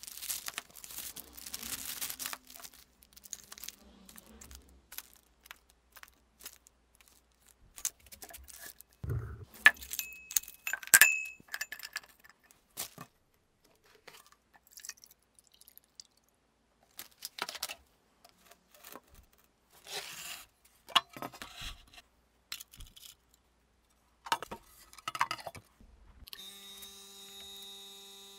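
Wood blocks, a glass beaker and a plastic jug of stabilizing resin handled on a wooden bench: scattered clicks, knocks and rustles, with a sharp glass clink that rings briefly around ten to eleven seconds in. A vacuum pump starts near the end with a steady hum, drawing down the chamber to stabilize the wood.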